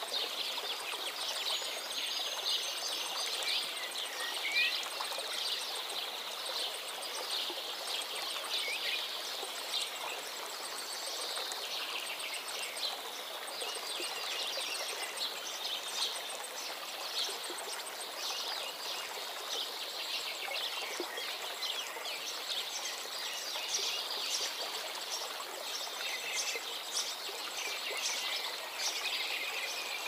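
Many small birds chirping and twittering, dense short calls throughout, over a steady hiss of running water.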